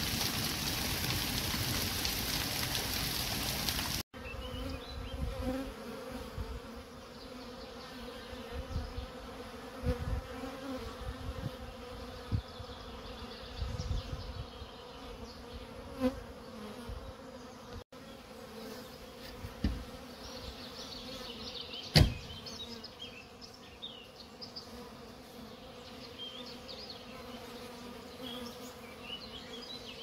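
Hail falling in a steady hiss for the first four seconds. Then honeybees buzzing close by in a steady hum, with occasional soft knocks and one sharp click a little after two-thirds of the way through.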